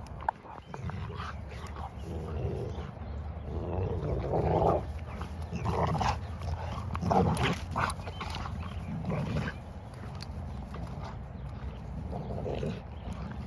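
A blue Cane Corso and a blue bully-type dog play-wrestling, growling in short, irregular rough bursts.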